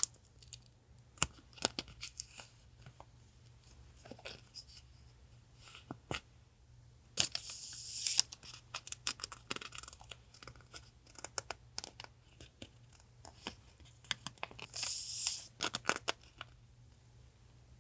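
Paper being torn and handled for a collage journal, with two longer tears about seven seconds in and near the end, and light taps and rustles of paper between them. A steady low refrigerator hum runs underneath.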